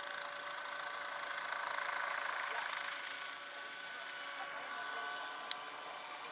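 Radio-controlled scale model helicopter in flight, its drive giving a steady high whine over the rush of the rotor. A single sharp click comes about five and a half seconds in.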